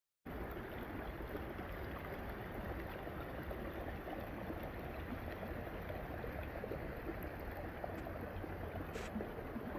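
Steady rushing of a flowing stream, cutting in abruptly just after the start.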